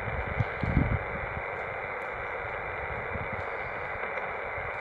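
Xiegu X108G HF transceiver's speaker giving a steady hiss of band noise while being tuned across the 17 m band, with no station audible in it. Wind rumbles on the microphone underneath.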